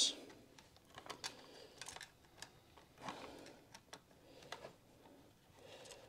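Gloved hands gathering stiff solid copper electrical wires together to join them: faint, scattered clicks, taps and scrapes of wire against wire and the metal box.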